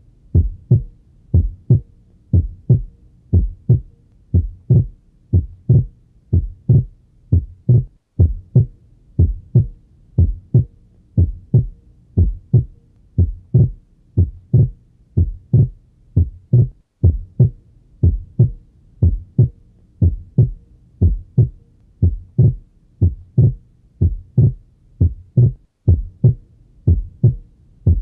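Human heart sounds as heard through a stethoscope: a steady repeating lub-dub, the second sound showing the physiological splitting of S2 that normally appears with breathing.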